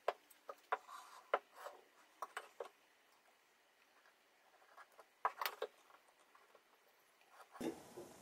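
Faint scattered clicks and taps of a steel combination square and pencil on a wooden board as a pencil line is drawn along the rule, with a short cluster of taps about five seconds in.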